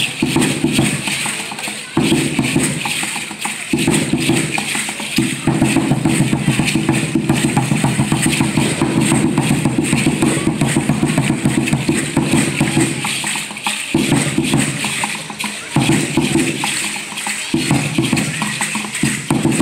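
Huehuetl, a tall upright wooden drum, beaten in fast, even strokes for an Aztec dance, breaking off briefly a few times, with the dancers' ankle rattles shaking over it.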